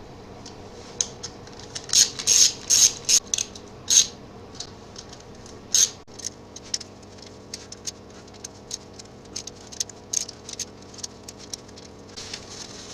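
Hand socket ratchet clicking in short irregular bursts while tightening the bolts of a motorcycle engine cover, with a few louder metallic clicks in the middle and again near the end.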